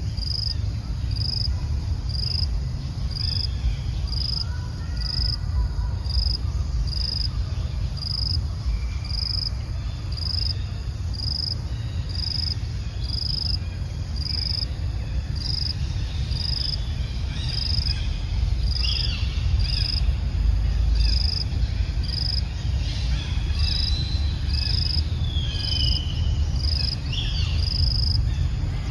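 An insect chirping in short, high, evenly spaced pulses, a little more than once a second, over a steady low rumble. Scattered short high calls come in, mostly in the second half.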